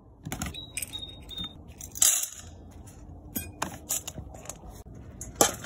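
Dry kibble poured from a metal measuring scoop into a stainless steel bowl: a series of clattering rattles and clinks, with a short metallic ring about a second in.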